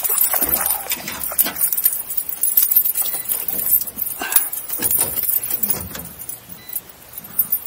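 Irregular clicks, knocks and rattles from fishing rods, reels and tackle being handled in a small boat.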